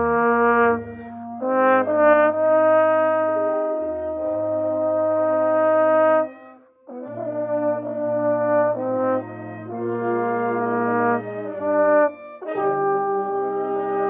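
Trombone with F attachment played close up, holding sustained notes and moving between phrases against other wind instruments sounding chords, with a low bass line beneath. The music breaks off briefly about seven seconds in, then the ensemble comes back in.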